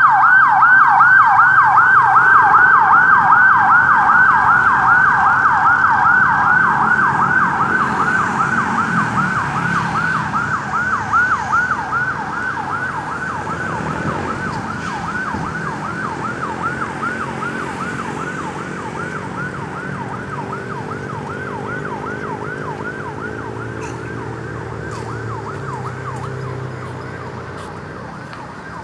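Ambulance's electronic siren on a fast yelp, its pitch sweeping up and down about four times a second, gradually growing fainter.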